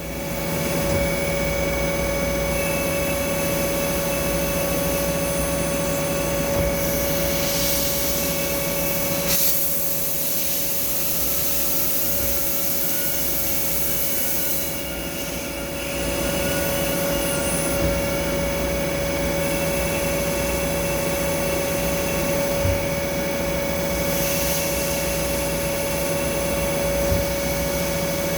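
Machine tool running steadily while machining beryllium copper, with a constant whine. A high hiss rises and falls in stretches of a few seconds.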